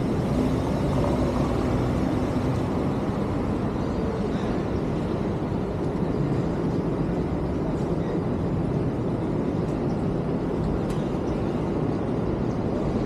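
City street traffic: a steady rumble of cars driving and turning past, with an engine hum standing out in the first couple of seconds.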